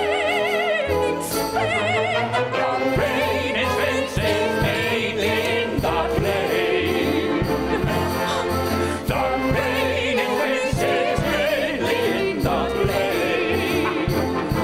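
Pit-style theatre orchestra playing a Spanish-flavoured dance interlude, strings and brass over a steady percussive beat. A singer's voice is heard briefly in the first two seconds.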